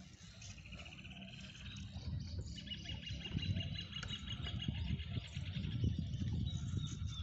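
Fishing reel's drag buzzing in fast clicks as a big fish pulls line off, once briefly and then again for several seconds, with low rumble from wind and handling of the rod underneath.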